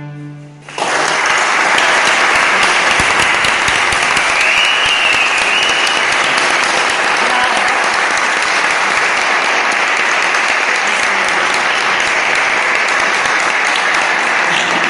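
The last low cello note dies away, and under a second in an audience starts applauding, steady clapping that continues throughout.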